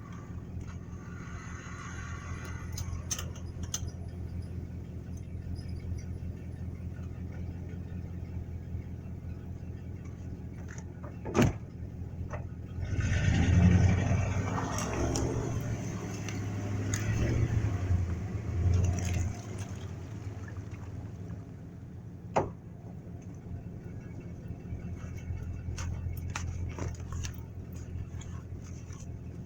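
A vehicle engine running steadily, growing louder for several seconds about halfway through, with two sharp knocks, one just before the louder stretch and one after it.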